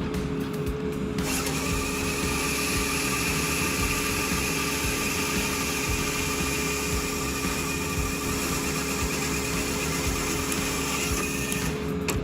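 A woodworking machine running: a steady whirring, cutting noise with a few fixed tones in it starts about a second in and stops shortly before the end, over a steady low hum.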